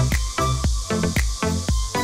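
Background music with a steady electronic beat, about four beats a second over a heavy bass pulse.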